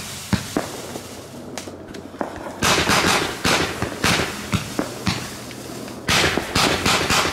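Aerial consumer fireworks going off: a run of sharp bangs with dense spells of crackling, about two and a half seconds in, again around four seconds, and once more near the end.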